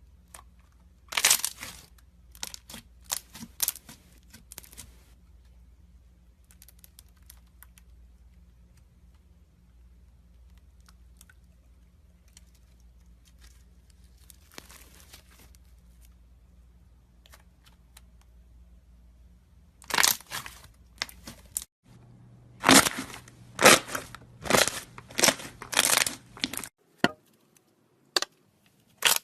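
Slime being worked by hand, giving crackling, crunching pops in clusters: a burst about a second in, a few more over the next seconds, a short one near the middle, then a long run of loud crackles from about two thirds of the way through.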